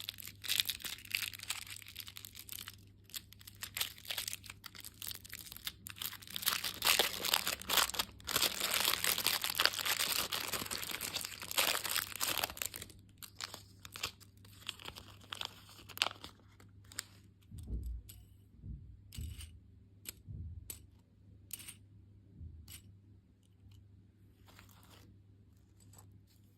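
Plastic candy wrappers being torn open and crinkled, a dense crackling that thins out about halfway through into scattered clicks, taps and a few soft low thuds.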